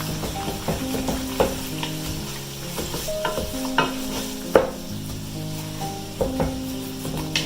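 Beef sizzling as it browns in a pot, stirred with a utensil that knocks and scrapes against the pot several times. Soft background music with long held notes plays underneath.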